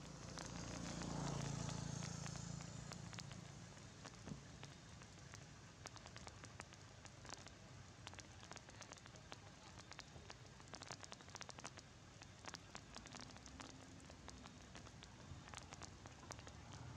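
Rain falling in irregular drips and patters, faint and steady. In the first three seconds a low droning sound swells and fades.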